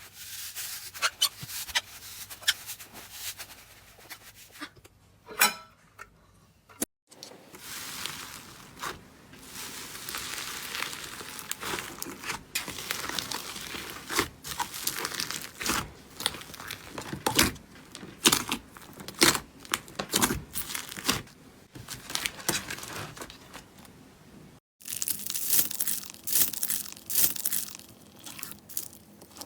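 Slime being squeezed and pulled by hand, giving a dense run of crackling, crunching clicks. The sound breaks off abruptly about seven seconds in and again near the end, where a new run of crackles starts.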